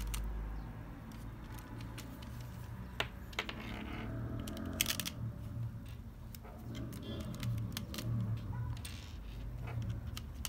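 Plastic LEGO Technic parts clicking and rattling as a chassis is handled and pins are pressed into its beams, with a cluster of sharp clicks about three to five seconds in.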